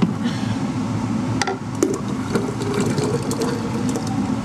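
Electric centrifugal juicer running empty after the produce has gone through: a steady motor whir with a light rattle, and a few sharp clicks of the jug and lid being handled.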